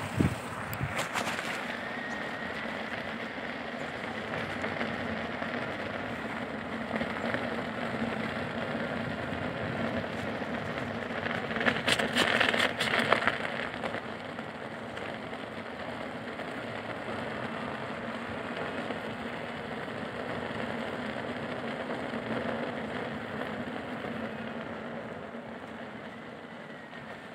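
Electric unicycle being ridden over packed snow: steady rolling noise with a faint motor whine that drifts with speed, and a louder crackling stretch for a second or two around the middle.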